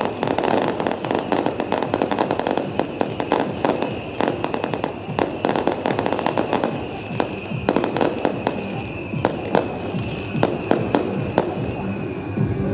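Beehive rocket barrage (蜂炮): masses of bottle rockets firing and cracking in rapid succession over a steady high whistle. The cracks are packed densely at first and thin out to more separate bangs in the second half.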